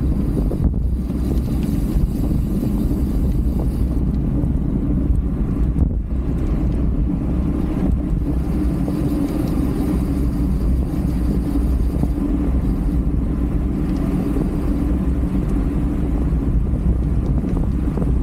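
Steady wind rush on the microphone of a 360 camera carried on a racing bicycle at race speed, mixed with road noise. It is a dense, unbroken noise, heaviest in the low end.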